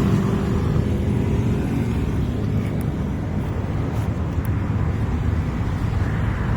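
Steady rumble of road traffic, cars running past, with a few faint ticks.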